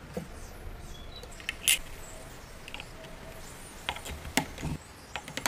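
Small screws being turned by hand with a screwdriver into the wooden case of an antique telephone, with light clicks and taps of metal on wood and brass. The clicks come a few at a time, scattered and irregular.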